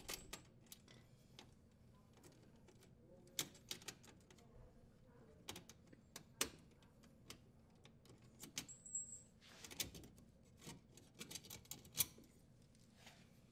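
Faint, scattered small metallic clicks and rattles: a conduit strain relief nut being unthreaded and the strain relief and power wires being worked out of a dishwasher's sheet-metal junction box. The clicks come more often in the second half.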